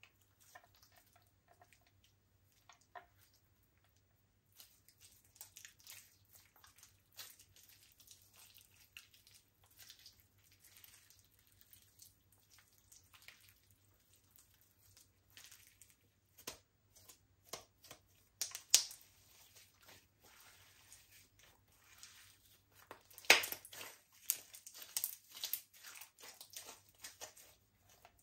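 Slime being squished, stretched and folded by hand: irregular sticky clicks and crackles, sparse at first and busier later, with a few louder pops in the second half.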